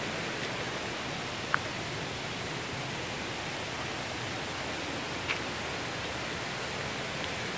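Steady rush of a waterfall running full with rainy-season water, with two brief high chirps, about one and a half and about five seconds in.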